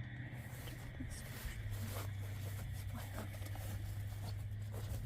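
Faint rustling and scattered light clicks of handling noise over a steady low hum that shifts slightly in pitch about a second and a half in.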